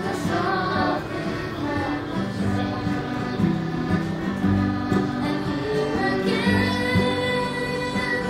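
A Newfoundland song sung by a boy with other voices joining in, over a piano accordion playing steady chords.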